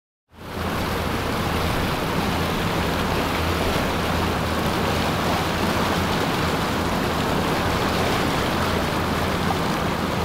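Triple Mercury 350 outboard engines on a Chris Craft running steadily with a low hum under a constant rush of water along the hull. The sound fades in just after the start and holds steady.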